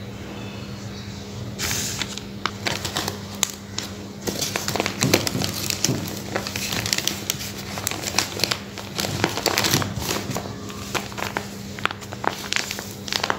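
Paper and thin cardboard being handled: irregular rustling and crinkling with many small sharp crackles, starting about a second and a half in. A steady low hum runs underneath.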